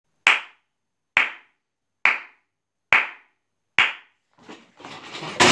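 Five slow, single hand claps, evenly spaced a little under a second apart. Then a rising noise of movement, loudest at the very end.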